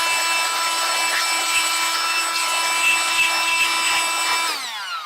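Small electric motor-driven blower running at a steady high whine with a rushing hiss of air, blowing sawdust out of the saw, then spinning down with falling pitch near the end.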